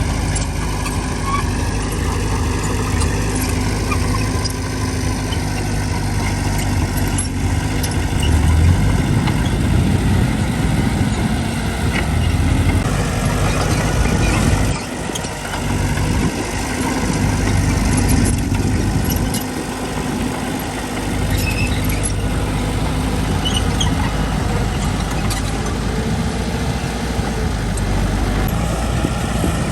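Diesel engine of working construction machinery running steadily at load. Its low rumble drops briefly twice around the middle.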